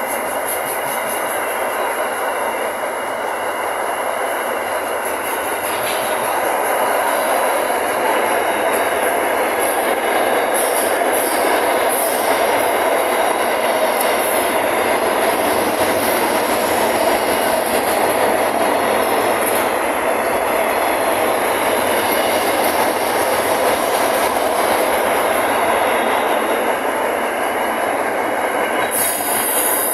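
Freight train wagons rolling past: a steady, loud roar of steel wheels on rail, with a thin high-pitched squeal held above it, getting a little louder about six seconds in.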